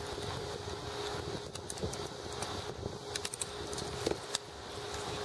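Scattered sharp clicks and light metallic clinking from hand tools at work on an old car speaker, with wire cutters snipping its wires, over a steady hum.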